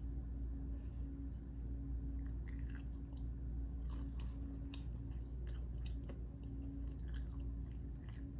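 A person chewing a mouthful of chicken sandwich with soft, wet mouth clicks, over a steady low hum.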